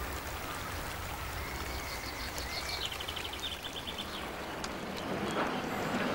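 Steady outdoor hiss, like rain or running water, with a small bird's quick trill about two and a half seconds in.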